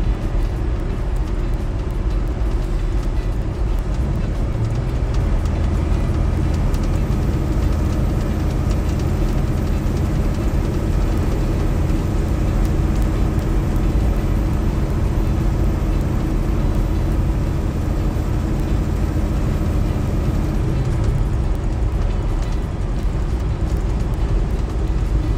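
Semi-truck's diesel engine running steadily at cruising speed, with tyre and road noise, heard inside the cab.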